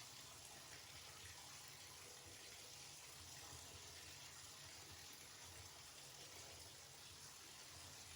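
Faint, steady running water, as from a bathtub tap or sprayer rinsing a dog, heard as an even hiss.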